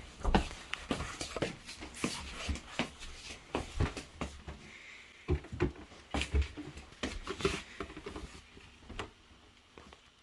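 Irregular rustling and soft knocks of someone moving about and handling things on a bed, thinning out towards the end.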